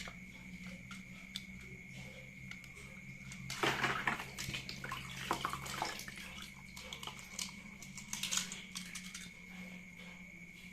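Water splashing and sloshing as toy vehicles are washed, with light knocks of the plastic toys; the loudest splash comes about four seconds in. A steady faint hum runs underneath.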